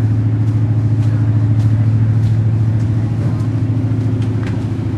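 Engines of modified off-road pickup trucks idling in line: a loud, steady low rumble.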